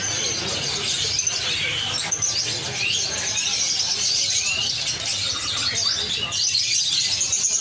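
Many caged songbirds chirping and twittering together, a dense, continuous high-pitched chatter of overlapping calls.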